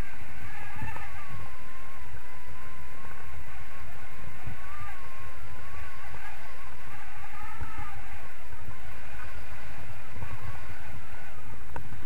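Airflow buffeting the camera's microphone in tandem paraglider flight, a steady rumble with uneven gusts. A thin, slowly wavering whistle rides over it.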